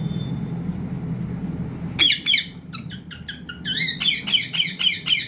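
Pet green parakeet giving a rapid run of sharp, high-pitched squawks, several a second, starting about two seconds in over a low steady hum.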